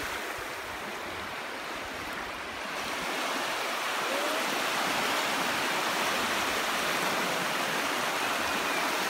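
Small sea waves washing and breaking in shallow surf, a steady rush of water that grows louder about three seconds in.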